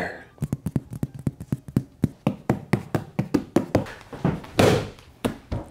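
Rapid knocking and tapping, about four or five hits a second, with a short swish about four and a half seconds in.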